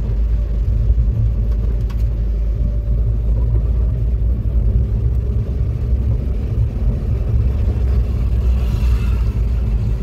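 Steady low engine and road rumble heard from inside the cab of a moving vehicle.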